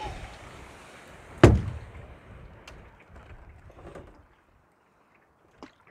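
Canoe being paddled: one loud, hollow knock about a second and a half in, the wooden paddle striking the side of the canoe. A few faint clicks and some water and wind noise follow, dying away a little past the middle.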